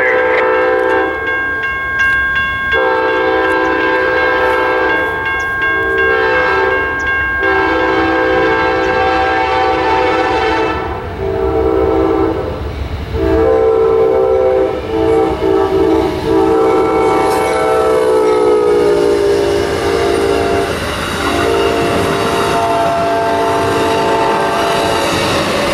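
Amtrak passenger train's locomotive horn sounding a series of long blasts for the grade crossing, its chord dropping in pitch as the locomotive passes, with the crossing bell ringing at first. Near the end the passenger cars roll by with wheel clatter under the horn.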